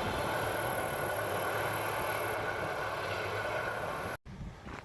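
John Deere 4640 tractor engine running steadily, a low hum under a wide even hiss, cut off abruptly about four seconds in.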